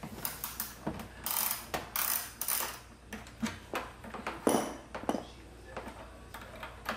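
Socket ratchet clicking in short rasping runs as a Torx screw is backed out, with scattered single tool clicks and taps in between.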